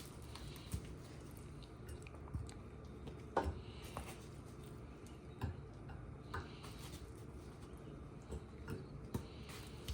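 Faint, scattered soft taps and wet squishes, about one a second, as raw chicken hearts are handled and pressed into a muffin tin of ground meat.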